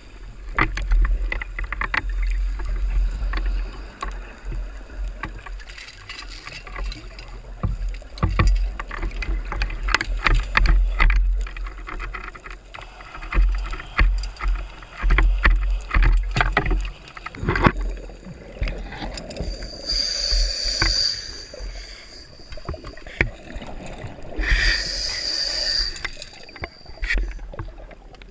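Underwater sound through a camera housing: a heavy low rumble of water moving around the camera, with repeated knocks and clicks from handling the speargun and gear. Twice, about 20 and 24 seconds in, a hissing rush of exhaled scuba regulator bubbles lasts a second or two.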